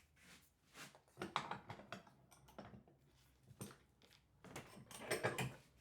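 Hand tools working wood: irregular light taps and clicks mixed with short scraping strokes, the busiest stretches about a second in and again near the end.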